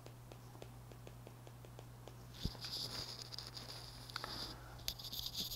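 Stylus writing on a tablet screen: faint, scratchy strokes start about two and a half seconds in and come again near the end. Before that there is only faint, regular ticking, over a steady low hum.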